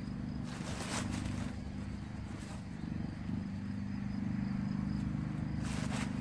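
A steady low motor drone, a little louder from about four seconds in, with short bursts of rustling as gloved hands work potting soil in a wooden planter, about half a second in, again near the middle and near the end.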